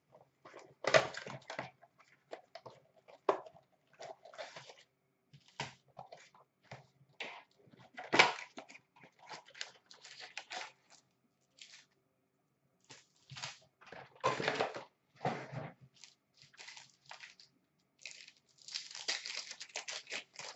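Upper Deck hockey card packs being torn open by hand: wrappers ripping and crinkling in irregular bursts, with cards and wrappers shuffled between rips.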